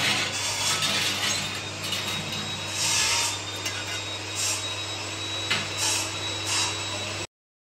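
Stick (arc) welding on a steel frame: short bursts of crackling arc hiss as tack welds are struck, over a steady low hum. The sound cuts out abruptly near the end.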